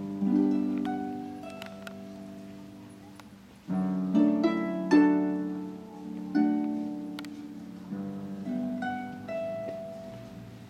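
Pedal harp played solo: plucked chords and single notes that ring and slowly die away. A strong chord opens, there is a brief lull just past a third of the way, then fuller chords follow before lighter high notes near the end.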